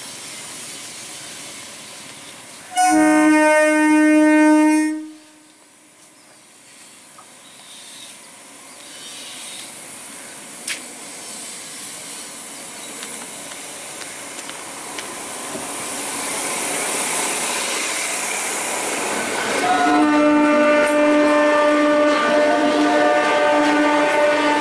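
ICF electric multiple unit (EMU) local train sounding its horn: a blast of about two seconds roughly three seconds in, then a long steady blast from about twenty seconds in as the train pulls out. Between the blasts a hiss swells for a few seconds.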